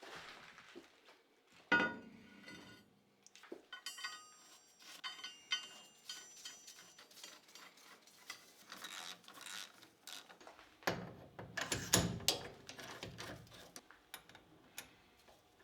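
Steel tools and parts being handled on a lathe: scattered metal clinks and clanks, some ringing briefly. There is a sharp clank about two seconds in and a louder cluster of knocks around twelve seconds in.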